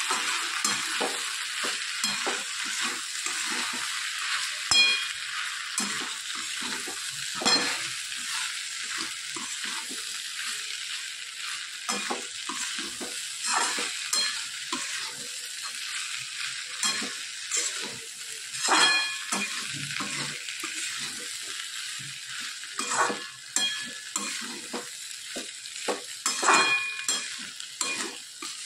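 Okra and sliced potatoes sizzling in hot oil in a stainless steel kadai while a metal spatula stirs them, scraping and knocking against the pan every few seconds, some knocks with a short metallic ring.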